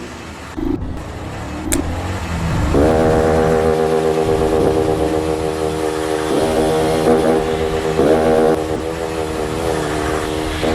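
Motorcycle engine revving. From about three seconds in it holds a steady high note, with quick rises in pitch past the middle and again near the end.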